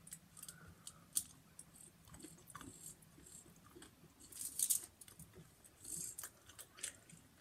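Faint chewing of a bite of chocolate bar, with scattered small clicks and short crinkles from the foil wrapper in hand, the loudest crinkle about four and a half seconds in.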